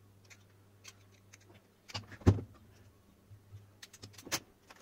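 Hard plastic torch housing parts handled on a wooden desk: scattered light clicks and taps, with one sharper knock a little past two seconds in.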